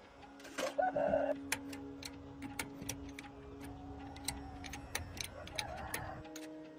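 Sharp, irregular clicks and taps over soft background music with steady held notes, and a brief louder burst about a second in.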